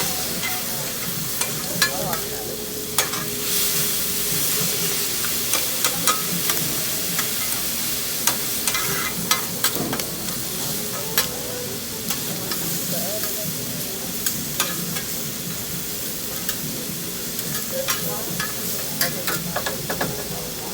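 Food sizzling on a hibachi griddle, a steady frying hiss broken by frequent sharp metallic clicks and taps of utensils on the plate.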